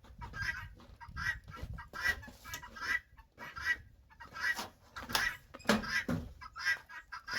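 Chickens clucking, a steady run of short calls one after another.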